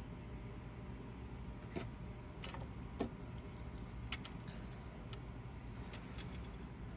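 A handful of light, sharp clicks and taps scattered over a few seconds, over a steady low hum.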